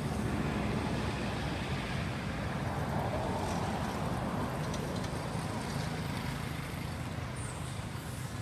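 Roadside traffic of small motorbikes and motorbike-drawn tuk-tuks running and passing, a steady mix of engine and road noise.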